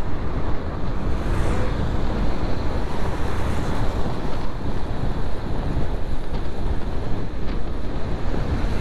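Steady wind rushing over the microphone of a moving motorcycle, a constant low rumbling that buries any engine sound.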